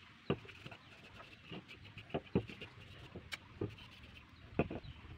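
Turned wooden bangle-stand parts knocking and clicking against each other and a wooden tabletop as they are handled and fitted together, about seven irregular knocks.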